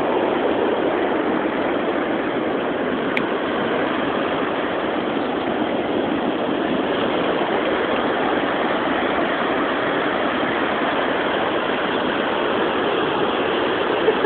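Ocean surf breaking on a sandy beach: a steady, even rush of waves with no single crash standing out.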